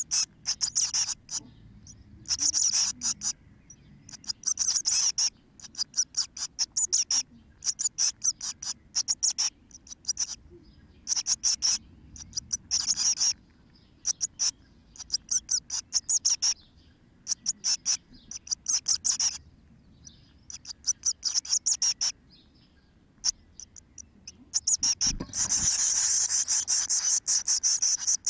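Blue tit nestlings giving high, rapid, rasping begging calls in short bursts every second or two. Near the end, after a low thump as an adult blue tit arrives at the nest, the calls run together into continuous begging from the whole brood.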